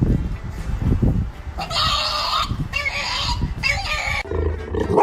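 An animal gives three loud, harsh calls of about half a second each, after a second or so of low rumbling thumps.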